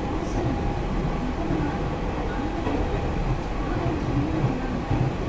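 Hanshin 8000 series electric train running, a steady rumble of wheels and motors.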